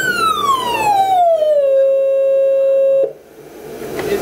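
Auxetophone air-powered amplifier, its valve plates driven by an electrodynamic shaker, sounding a test tone that glides down in pitch like a siren, settles on a steady lower note, then cuts off suddenly about three seconds in.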